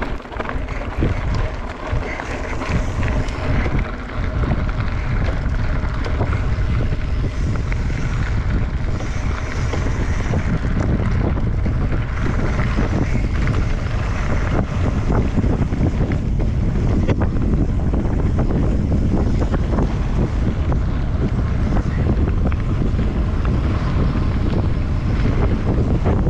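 Wind buffeting the microphone on a moving mountain bike, with tyres rolling over a gravel trail and scattered small clicks and rattles from the bike.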